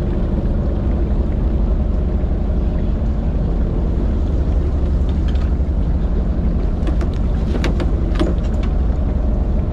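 Boat's engine idling, a steady low rumble. Near the end, a few sharp clicks and splashes come as a landing net goes into the water.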